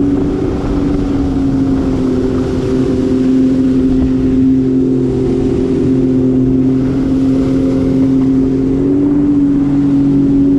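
Sea-Doo GTX Limited 300 jet ski's supercharged three-cylinder engine running under way at a steady cruise, over the rush of water along the hull. The engine pitch holds steady and rises slightly near the end.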